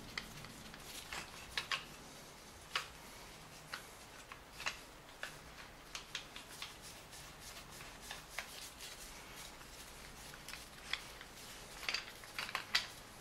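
Scattered light clicks and taps of a plastic BMW timing chain guide rail and its chain being handled and worked into place on an M52 engine block, with a quicker run of clicks near the end as the guide seats.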